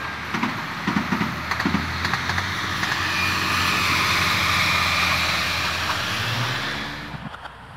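Passenger train running past: a few sharp wheel clacks in the first couple of seconds, then a steady rush of the train going by that swells in the middle and fades away near the end.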